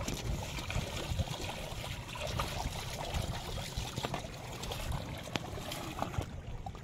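Shallow seawater trickling and lapping around shore rocks, a steady wash of water with small scattered clicks and splashes.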